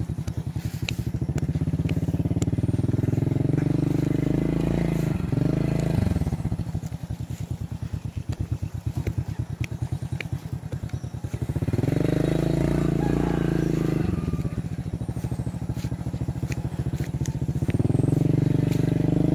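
A small engine running throughout with a fast, even pulse. Its pitch and level swell and fall back about five seconds in, again around twelve to fourteen seconds, and near the end, and it is quieter in between.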